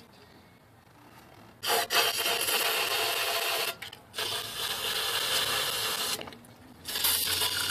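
Aerosol can of carburetor cleaner spraying in three hissing bursts of about two seconds each, beginning about a second and a half in. The cleaner is being sprayed down the pushrod holes of a GM LS engine to flush sludge out of the hydraulic lifters, a fix for lifter knock.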